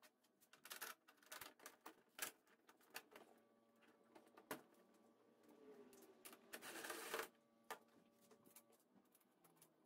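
Faint, scattered clicks and taps of hands handling the golf cart's plastic and metal parts during reassembly, with a brief rustle about seven seconds in, over a faint steady hum.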